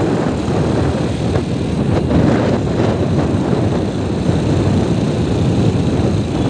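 Steady low rumble of a vehicle driving along a road: engine and road noise mixed with wind on the microphone.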